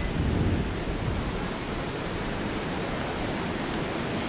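Steady rushing noise of wind on the camera microphone and ocean surf; the low buffeting eases about half a second in, leaving an even hiss.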